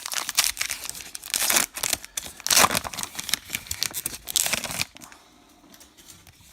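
Baseball card pack wrapper being torn open and crinkled by hand, a dense run of crackling and rustling that stops about five seconds in.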